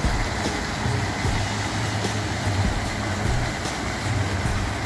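Fountain jets splashing steadily into a shallow pool, a continuous even hiss of falling water, with a low uneven rumble underneath.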